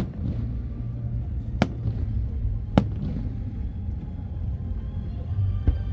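Fireworks display: a steady low rumble of shells bursting, with a few sharp separate cracks, about four over the few seconds.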